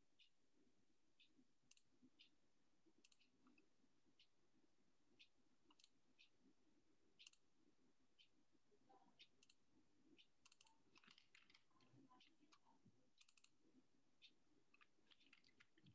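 Near silence with faint, irregular clicks, more frequent from about ten seconds in.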